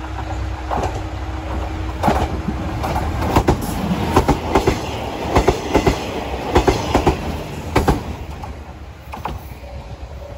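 A diesel limited express, the green Yufuin no Mori, runs through the station without stopping, its wheels clacking over the rail joints in a quick run of sharp clicks from about two to eight seconds in, then fading as it pulls away. Under the start, a standing diesel railcar idles with a steady hum.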